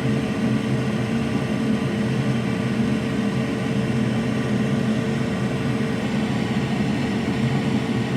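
Steady whir and hum of a small electric fan or blower running without change.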